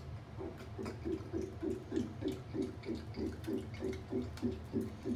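A person gulping down a drink in quick, regular swallows, about three a second, starting about half a second in, over a steady low hum.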